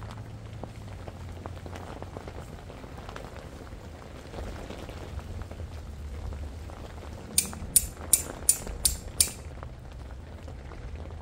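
Rain-fly fabric rustling as it is pulled and adjusted over an inflatable tent, over a steady light patter. About seven seconds in comes a quick run of six sharp clicks, roughly three a second.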